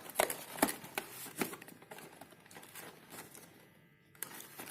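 Headphone packaging being opened and handled: a few sharp taps and rustles in the first second and a half, then softer rustling, with another couple of clicks near the end.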